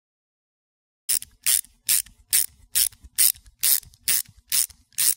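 Socket wrench ratchet clicking, about ten even clicks at a little over two a second, starting about a second in.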